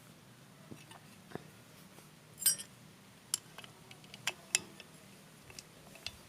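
Scattered light clicks and knocks of small hard parts being handled, about a dozen in all, the loudest about two and a half seconds in.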